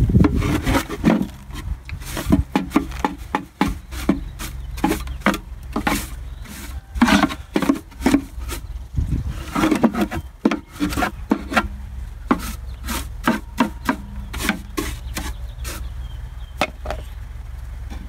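Metal hive tool scraping propolis off the wooden beehive box where the frames rest, in irregular short scrapes and knocks.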